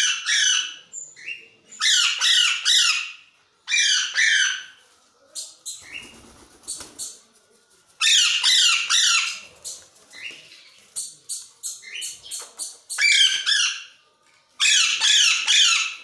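Green parakeets screeching: six loud bouts of harsh, rapid squawks, each a quick run of repeated calls, with softer clicks and rustling between bouts.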